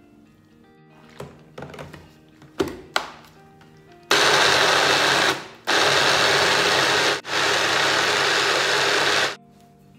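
A few knocks and clicks as the blender jar is handled and fitted onto its base, then a small Shimono personal blender's motor grinding green curry paste ingredients (shallot, garlic, chilli, lemongrass and herbs in oil). It runs loudly in three bursts, stopping briefly twice, and cuts off near the end.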